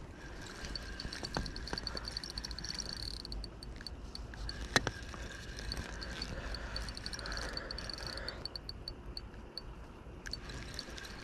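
Night chorus of calling insects and frogs: a rapid, evenly repeating high chirp over a fainter steady trill, with one sharp click about five seconds in.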